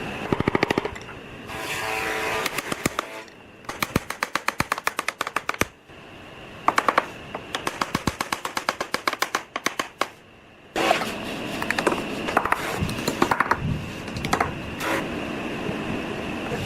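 Runs of rapid mechanical clicking, about seven clicks a second, broken by short pauses, over a faint steady high-pitched whine.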